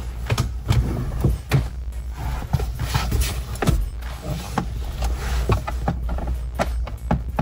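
Irregular clicks, taps and knocks of a Torx screwdriver and hands working at the plastic dashboard trim of a Ford car, over a steady low hum.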